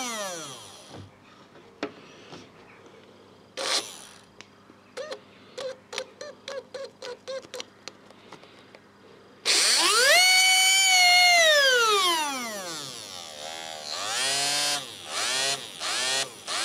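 Small 5-volt brushed DC can motor whining as it spins, first in a string of short bursts, then switched on hard about nine and a half seconds in and winding down with a falling whine over about three seconds, then several more short spin-ups near the end. It is being overdriven to burn it out.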